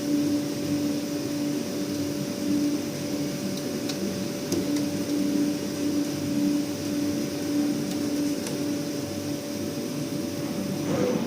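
A machine running with a steady hum, with a few faint ticks along the way.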